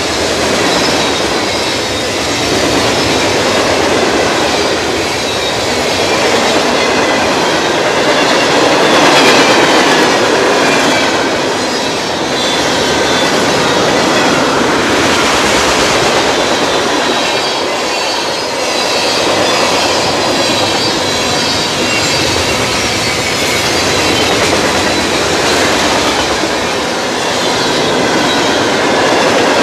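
Freight train cars rolling past at close range: the steady rumble and clatter of steel wheels on the rails, with a thin wavering squeal from the wheels.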